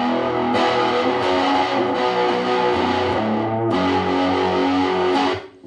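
Electric guitar played through a Boss CE-1 Chorus Ensemble pedal cranked up, sustained strummed chords breaking up into distortion from the overdriven pedal. The playing stops abruptly near the end.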